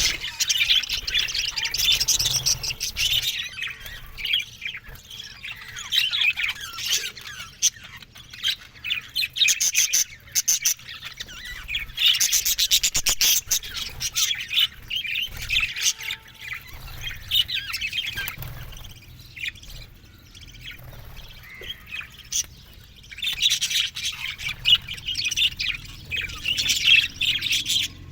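A flock of budgerigars calling over one another in fast, high chirps, in busy bouts with quieter stretches between.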